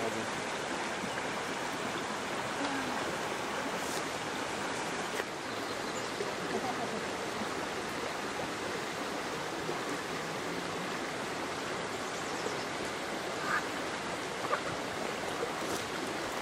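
Creek water flowing, a steady even rush.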